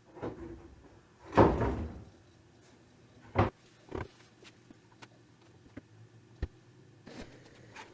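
Sheets of Baltic birch plywood being handled on the workbench: a short sliding scrape about a second and a half in, then two sharp knocks and a few light taps.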